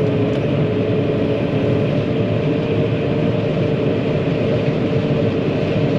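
John Deere 9500 combine running: a steady machine drone with a constant whine on top.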